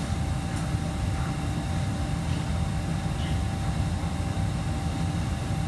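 Steady low droning hum of kitchen ventilation and machinery running without a break, with a faint steady whine above it.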